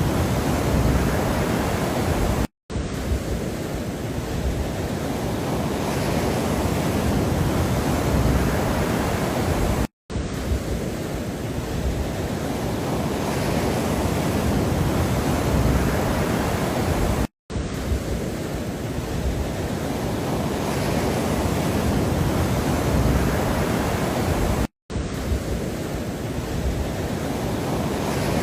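Steady rushing noise of a background relaxation track, a short loop that repeats about every seven seconds. Each repeat is marked by a brief dropout to silence, and the hiss swells and eases within each loop.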